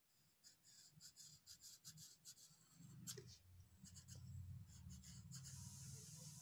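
Faint scratching of a soft-lead pencil on drawing paper in quick short strokes as a drawing is outlined. A low hum comes in about three seconds in, and a steady hiss near the end.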